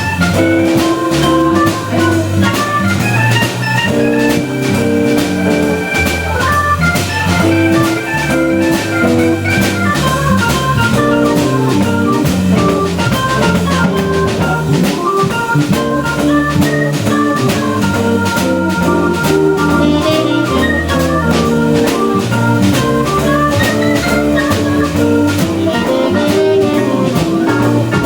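Live jazz combo playing: a Hammond organ with held chords and quick runs of notes over a steady drum kit beat with cymbals.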